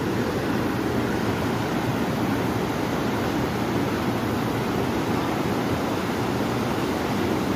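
Fast, muddy river rushing through rapids over rocks: a steady, loud rush of turbulent water.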